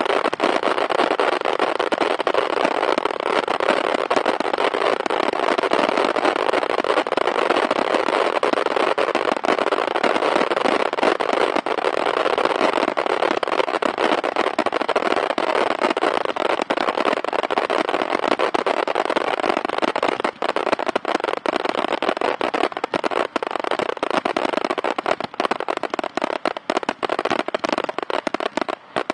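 Fireworks going off in a loud, dense, continuous crackle of rapid reports. It thins into more separate, sparser cracks over the last several seconds.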